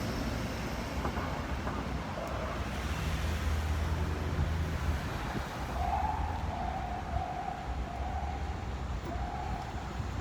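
Steady traffic rumble, with a held tone that comes and goes in short pieces over the last few seconds.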